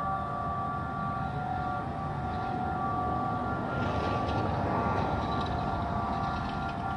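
Several outdoor tornado warning sirens, a Federal Signal 3T22 and Model 2001s, sounding together on a steady tone, heard as a chord of held pitches over a low rumble. A rushing noise swells about halfway through and then eases.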